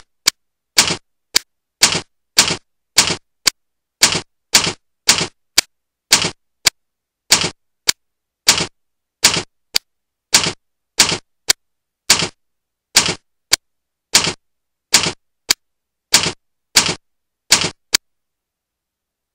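Typewriter sound effect accompanying text typed onto the screen: single sharp key clacks, about two a second, that stop about a second before the end.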